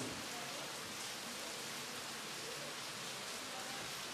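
Steady rain falling, an even hiss of drops on the ground and nearby surfaces.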